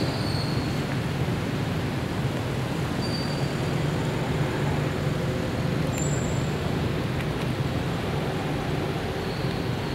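Steady low outdoor rumble with no breaks, with a few brief faint high chirps now and then.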